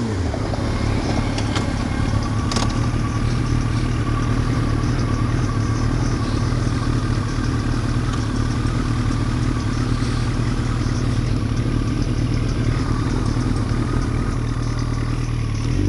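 Motorcycle engine idling steadily with an even, unchanging pitch.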